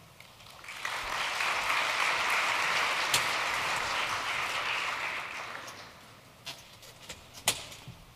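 A large audience applauding. The clapping swells up about a second in and dies away over the next few seconds. Near the end come a couple of sharp knocks.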